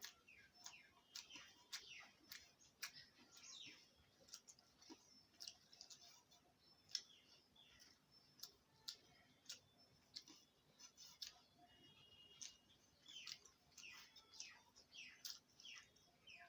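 Faint chirping of small birds: many short, high, falling chirps, several a second, scattered throughout.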